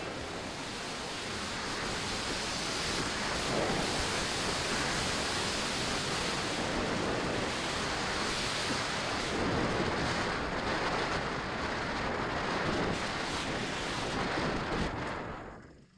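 Air rushing over the microphone of a camera mounted on a model glider in flight: a steady hiss that drops away suddenly near the end.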